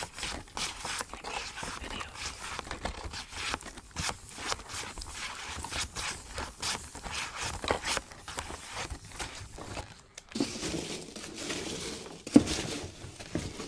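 Fingernails tapping and scratching on a Starburst candy cane box, cardboard with a clear plastic front, held close to the microphone, with crinkling of the plastic. About ten seconds in the handling turns to fuller rustling, and a single louder knock comes about twelve seconds in.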